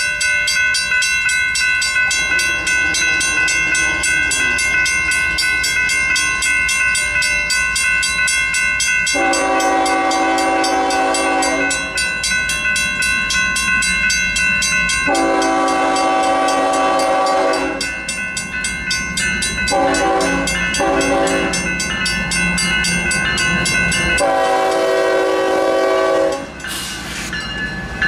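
Mechanical railroad crossing bell ringing in fast, even strokes. A diesel locomotive horn sounds the grade-crossing warning over it: two long blasts, two short ones and a final long one, as the train's rumble comes up near the end.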